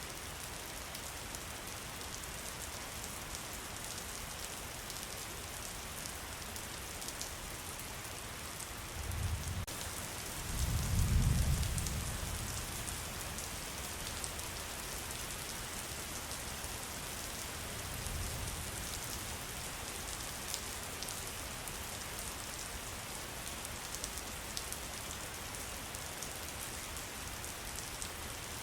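Steady rain falling on a surface, with individual drops ticking through the hiss. About a third of the way in, a low rumble swells and fades, with a weaker one later on.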